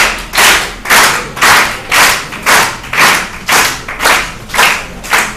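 Hands clapping in a steady rhythm, about two claps a second.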